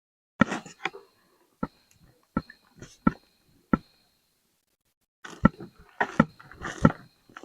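A person eating spicy chicken close to the microphone: sharp, separate bites, chewing clicks and mouth smacks. About a second and a half of pause falls in the middle, and the sounds come thicker near the end.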